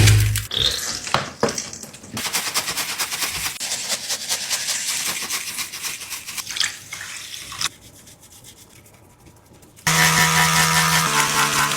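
Rapid scrubbing strokes on a squishy toy being cleaned. A thump opens it, and from about ten seconds in a steady pitched hum comes in, changing pitch once.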